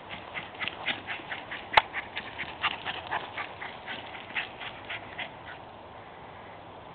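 Small chonzer (schnauzer–bichon mix) dog panting hard in quick short huffs, about five a second, as it runs after a ball; the huffing stops about five and a half seconds in. One sharp click about two seconds in.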